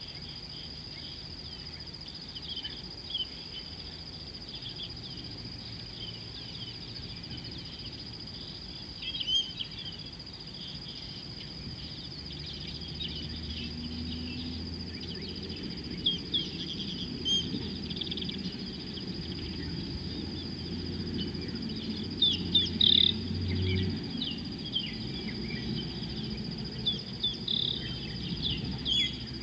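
Steady high-pitched insect drone with many short bird chirps over it, busier and louder in the second half. A faint low rumble swells in the middle.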